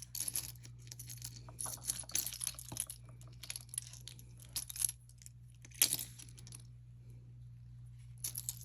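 Small metal and glass costume jewelry pieces clinking and rattling in irregular clusters as they are sorted through by hand, with one sharper clink about six seconds in. A low steady hum runs underneath.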